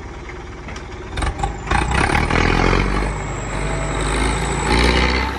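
Farm tractor engine working under heavy load as it drags a fully loaded trailer through deep mud, getting louder about a second and a half in, with a few knocks just before.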